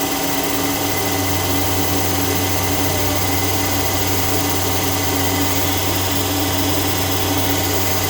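Okamoto IGM 15NC CNC internal grinder running, its internal-diameter wheel spindle turning at high speed: a steady mechanical whine over a broad hiss, with a low hum coming in about a second in.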